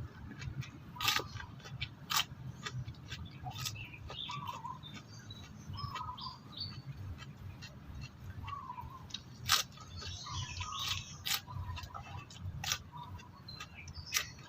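Close-up chewing of raw bitter gourd, with irregular sharp crunches every second or two, while small birds chirp in short curling calls. A low rumble runs underneath.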